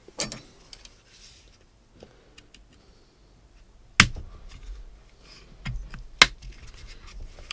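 Small pick tool prying at the plastic end cap of a JBL Flip 4 speaker: light scraping with three sharp clicks, the two loudest about four seconds in and just past six seconds, as the cap's snap clips are worked loose.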